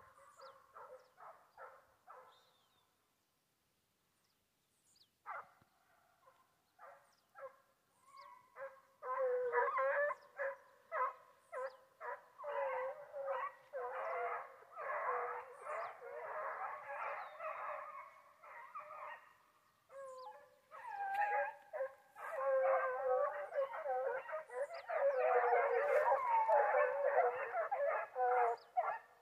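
A pack of foxhounds baying on a wild boar's trail, several voices overlapping. A few calls open it, then a short lull, then the baying builds into a fuller chorus toward the end.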